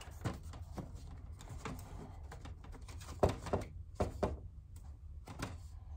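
Scattered light clicks and knocks from handling the back of a poster frame, the sharpest about three seconds in.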